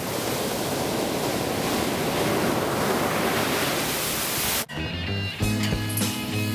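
Ocean surf breaking and washing up the shore, a steady rushing hiss that cuts off abruptly about four and a half seconds in. Music with a steady beat follows.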